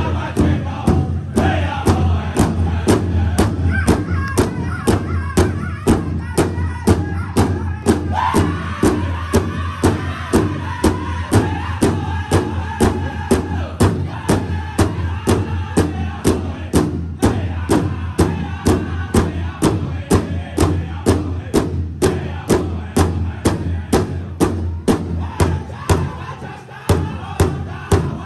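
Pow-wow drum group: several men strike one large hide-covered drum in unison with drumsticks, keeping a steady, fast beat while singing together. The beat breaks off briefly near the end.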